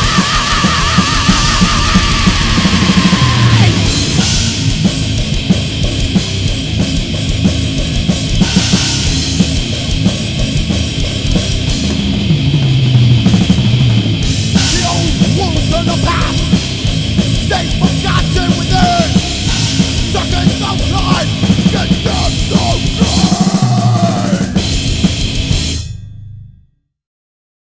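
Loud hard-rock music with a driving drum beat, fading out quickly near the end.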